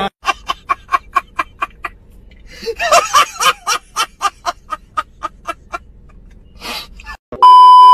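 A man laughing hard in rapid, evenly spaced hoots, about five a second, in long runs. Near the end a loud steady electronic beep cuts in.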